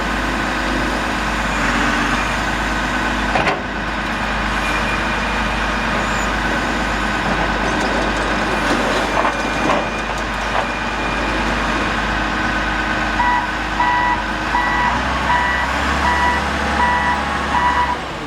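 The 138 hp Cat diesel engine of a 2004 Cat 924G wheel loader runs steadily. About two-thirds of the way through, the loader's backup alarm starts beeping at about two beeps a second, a sign the machine is reversing.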